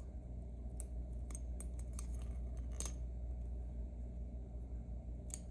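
Scattered small metallic clicks and ticks as the tiny pins and springs of a disassembled M&C Matrix lock are handled, over a steady low hum.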